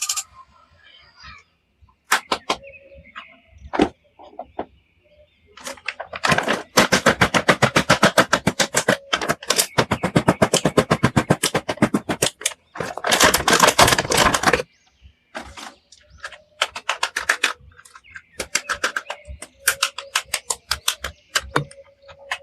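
Rapid clicking and scraping from handling plastic toys: scattered single clicks, then two long runs of fast, dense strokes in the middle.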